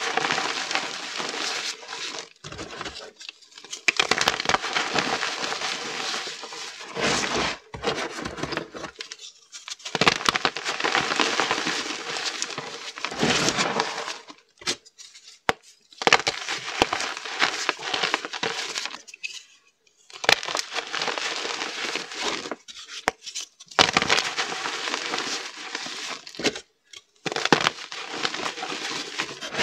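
Chunks of reformed gym chalk being crushed and crumbled by hand into a bed of loose chalk powder: crunching and powdery crumbling in spells of a few seconds, with short pauses between.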